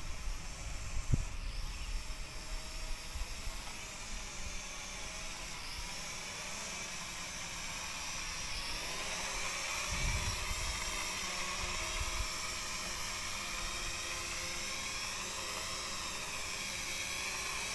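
Small quadcopter camera drone (S11) in flight on return-to-home, its propellers giving a high, buzzing whine that wavers in pitch and grows a little louder from about halfway through as it comes back. Low rumbles sit under it near the start and about ten seconds in.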